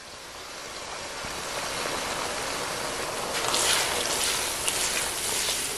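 Yogurt sizzling in hot oil as it is poured over fried onion and spice masala in a pan and stirred in with a spatula; the sizzle grows steadily louder.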